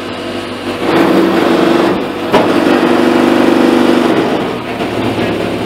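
Engine of a student-built formula-style car running, swelling to a louder, steady note about a second in and easing back after about four seconds, with one sharp click in the middle.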